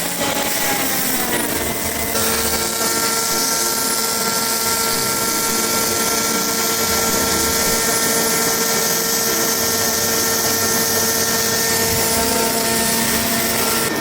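Motor-driven welding equipment running steadily, a machine whine over hiss. Its tones climb in pitch over the first two seconds as it spins up and glide down again right at the end.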